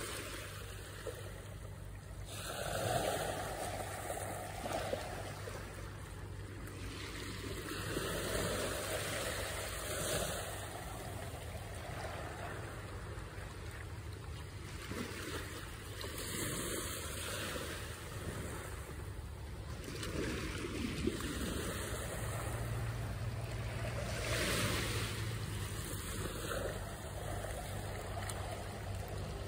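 Small waves washing onto a sandy shore, the wash swelling and fading every few seconds.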